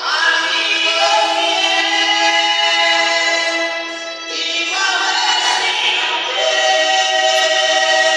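Two women singing a Portuguese gospel hymn into microphones, in long held notes. There is a short break between phrases about four seconds in.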